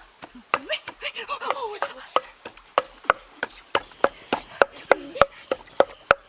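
Rapid chopping: a blade striking a wooden chopping block about three times a second, each strike sharp with a short ring.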